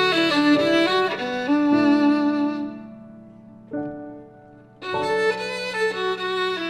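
Instrumental background music with a sustained melody; it dies away about three seconds in and comes back about five seconds in.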